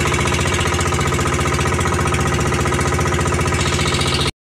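Outrigger boat's engine running steadily at cruising speed with a fast, even pulse, cutting off abruptly just before the end.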